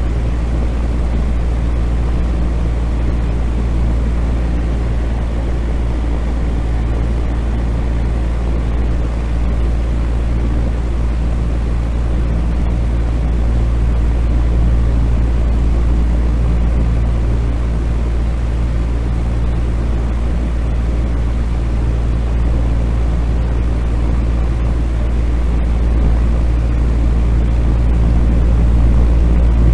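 Fan running steadily: a constant low motor hum under an even rush of air.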